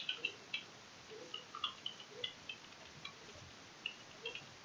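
Computer keyboard being typed on: an irregular run of quick, light key clicks as a username and password are entered.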